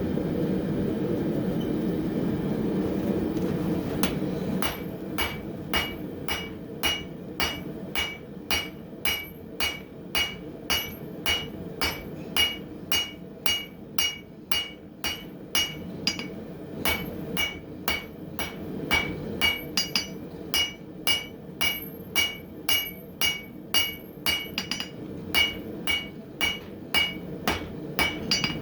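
Steady roar of the forge, then from about four seconds in a hand hammer striking hot steel on an anvil in a regular rhythm of nearly two blows a second, each blow ringing, as a piece of coil spring is forged flat for a flint striker.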